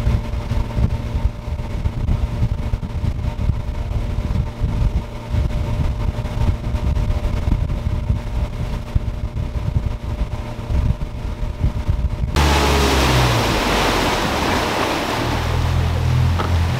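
Outboard motor running with the boat under way, with wind buffeting the microphone and the wake rushing. About twelve seconds in the sound changes suddenly to a louder, hissing rush of wind and water over a low engine hum.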